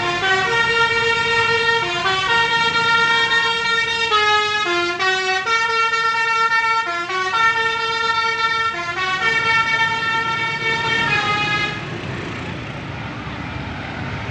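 A tourist bus's telolet basuri horn playing a tune of held notes that step up and down. The tune stops about twelve seconds in, leaving a steady background rumble.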